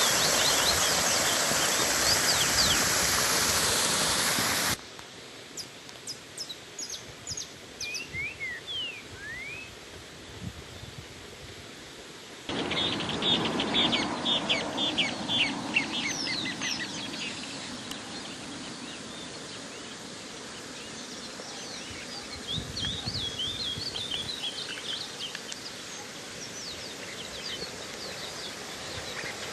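Water running over a small rock cascade, a steady rushing noise, with birds chirping over it. The water noise drops away abruptly about five seconds in, leaving mostly bird calls and a few rising whistles, then comes back just as abruptly about eight seconds later with a burst of rapid chirping.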